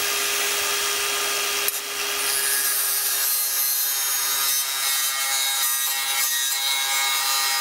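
Angle grinder running steadily with a cut-off wheel, cutting through the thin sheet-steel brake dust shield at a car's rear hub to clear room for a big-brake caliper bracket. It is a steady high whine over a grinding hiss, with a sharp tick about two seconds in.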